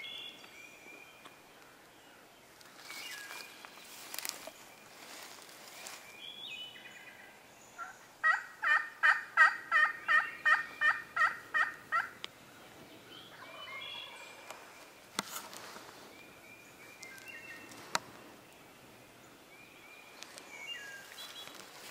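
Turkey yelping: a loud run of about a dozen evenly spaced yelps, each dropping in pitch, lasting about four seconds midway through. Songbirds chirp faintly around it.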